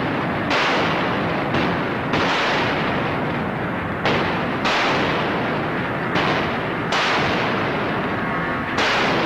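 Iowa-class battleship's 16-inch Mark 7 naval guns firing a rapid series of heavy blasts, about eight in nine seconds at uneven spacing, each a sudden boom that dies away before the next.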